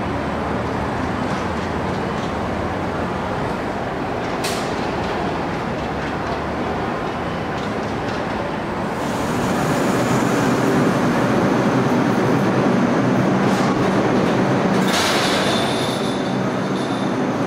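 Steady street noise for the first several seconds. Then, about nine seconds in, a louder New York City Subway R142A train runs along an underground platform. About fifteen seconds in there is a sharp hiss, followed by steady high-pitched tones near the end.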